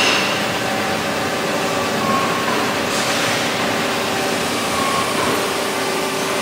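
Haas GT-20 CNC lathe running with a steady machine hum and a few held whining tones. About three seconds in there is a brief rush of louder noise, as the slide rapids back to its home position.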